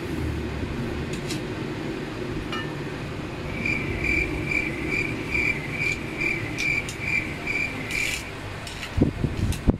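Aluminium tarp pole sections being twisted and worked apart by hand, with a few low knocks near the end. A run of about eleven evenly spaced high chirps, about two and a half a second, is heard from about three and a half seconds in until about eight seconds in.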